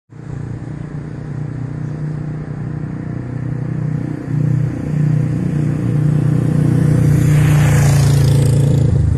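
Motorcycle engine running with a steady low hum that grows louder, then a motorcycle passing close with a rush of noise about seven to eight seconds in.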